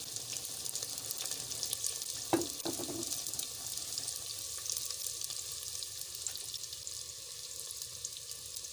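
Chopped onions sizzling and crackling as they brown in hot ghee in an earthen clay handi. Two brief knocks a little over two seconds in.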